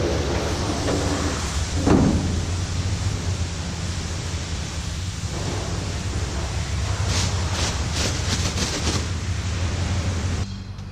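Steady low rumble and hiss of a car-wash bay. About two seconds in comes one loud creak as the pickup's hood is raised, and near the end a plastic bag crinkles as it is handled.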